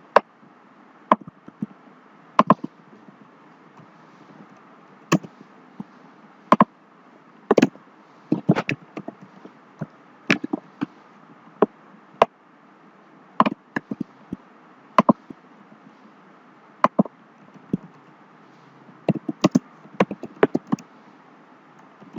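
Computer keyboard keys pressed one at a time in irregular, widely spaced clacks while code is typed, over a steady background hiss.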